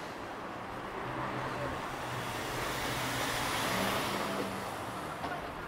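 A car passing close by: the tyre and engine noise swells to its loudest about four seconds in, then fades, with a low engine hum under it.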